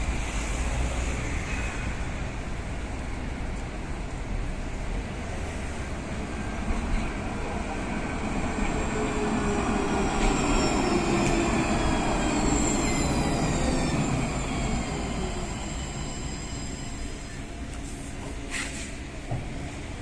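Alstom Citadis 405 tram approaching and braking into a stop, its running noise growing louder around the middle, with a high whine falling in pitch as it slows.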